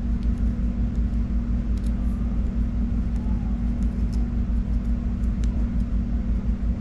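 A steady low mechanical hum with one held tone, from a running motor, with faint light ticks scattered through it as the thin Cat 6 wires are handled.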